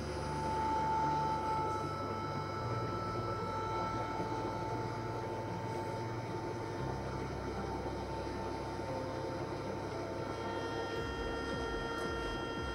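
Orbital TIG welding system running during a weld: a steady electrical hum and drone with a thin, steady whine, the low hum shifting in pitch a few times as the rotor carries the arc around the tube.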